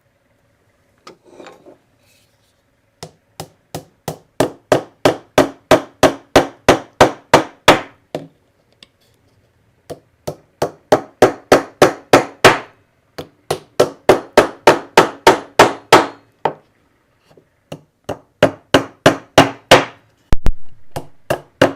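Hammer tapping 7/8-inch brads through a mahogany cockbead into a drawer front: runs of quick, sharp taps, about five a second, with short pauses between the runs.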